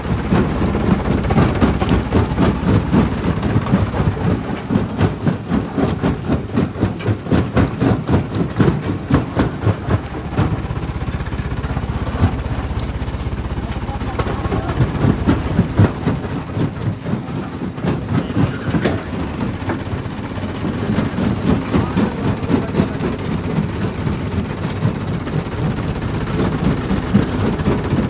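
Jaw crusher running, a steady low drone under dense, irregular cracking and knocking as rock is broken between its jaws; the knocks are thickest in the first ten seconds and ease into a steadier grinding rumble for a few seconds after that.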